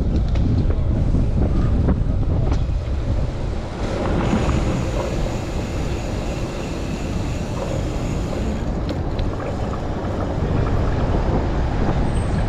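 Strong wind buffeting a chest-mounted camera's microphone while riding a bicycle, a heavy low rumble throughout. A brighter hiss joins in from about four seconds in and drops away a little after eight seconds.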